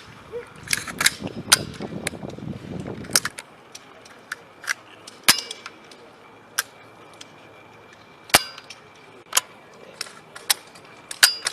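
Sharp mechanical clicks of a firearm's trigger being pulled and its action working: a dozen or more single clicks at uneven intervals, some with a short metallic ring. A low rumble of handling runs under the first three seconds.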